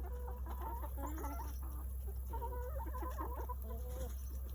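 A flock of chickens clucking, many short calls overlapping one another while they feed, over a steady low hum.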